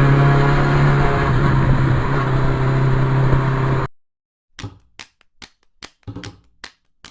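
A vehicle engine running at a steady speed, which cuts off abruptly about four seconds in. It is followed by a run of sharp clicks, about two or three a second.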